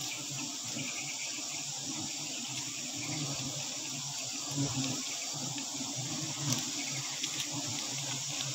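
A colony of wild honeybees buzzing steadily around their exposed comb, a wavering low hum, over an even high hiss.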